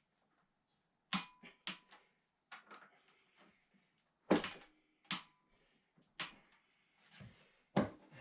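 Sharp metallic clicks and knocks of hand tools on engine bolts being tightened, about seven in irregular succession, a few ringing briefly; the work ends with a bolt tightened to 75 newton metres.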